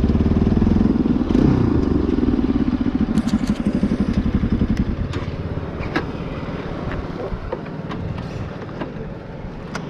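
Bajaj Pulsar NS200 single-cylinder engine with a modified exhaust running while riding, strongest in the first few seconds and then easing off and growing steadily quieter through the second half. A few light clicks sound over it near the end.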